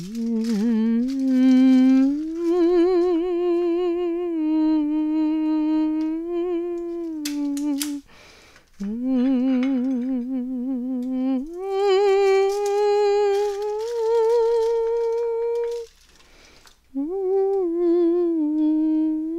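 A voice humming a slow tune in long held notes with a wavering vibrato, in three phrases with short breaks for breath about 8 and 16 seconds in.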